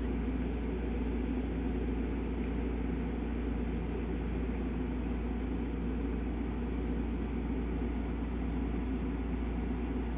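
Steady low hum with no change in level or pitch.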